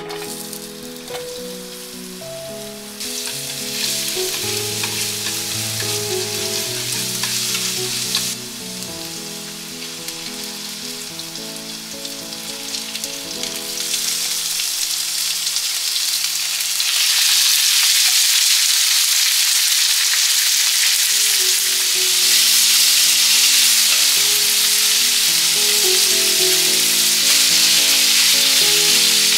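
Food sizzling in a frying pan. The sizzle grows louder about halfway through, with light background music underneath.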